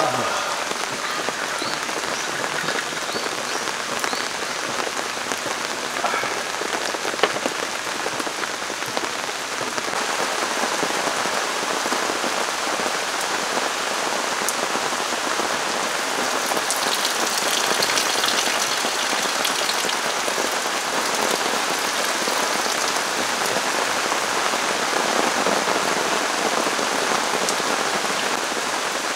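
Heavy rain falling steadily on a camping tarp and tent and the forest around them, with an occasional single drop ticking. The downpour grows a little louder about ten seconds in.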